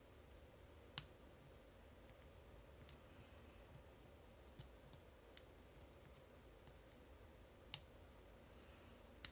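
Faint, scattered metallic clicks of a pick and tension wrench working the spool pins inside a Master Lock Pro Series 931D laminated padlock, about six sharp ticks spaced irregularly, one near the end of the second half louder than the rest.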